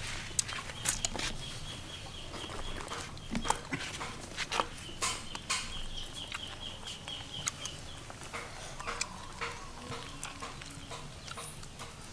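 A knife cutting open a cooked softshell turtle, giving irregular sharp clicks and crunches as the shell is worked loose. A thin high chirping runs in the background through the first half.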